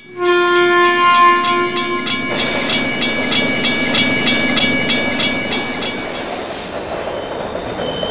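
Train horn sounding one steady note for about two seconds, then the rumble and rhythmic wheel clatter of a passing train. Near the end a short high beep repeats about once a second.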